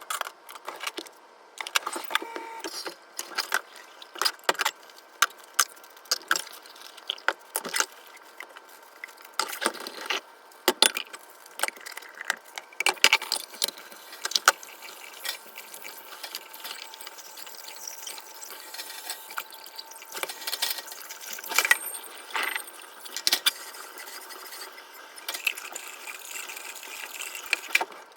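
Household cleaning and handling sounds: irregular sharp clicks, taps and clatters of hard items being picked up, set down and worked, dense in some stretches and sparse in others.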